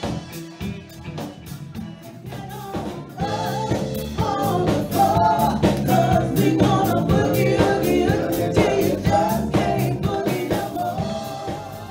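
Live band playing dance music on drums, electric guitar, bass and keyboard, with a woman singing lead from about three seconds in.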